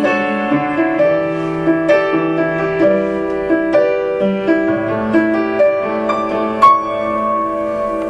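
Piano playing an instrumental interlude of the song without singing: a melody of held notes over chords. A single sharp click sounds about two-thirds of the way through.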